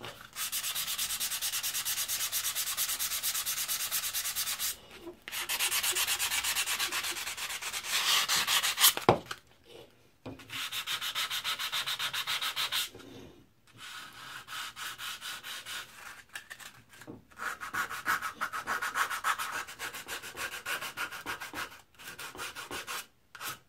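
Hand-sanding a rusty drawknife blade with folded sandpaper to loosen the rust: rapid back-and-forth rasping strokes in several bouts with short pauses between them. There is one sharp click about nine seconds in.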